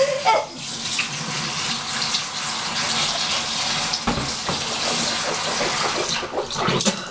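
Kitchen tap running steadily into a stainless-steel sink, shut off about six seconds in, followed by a few knocks.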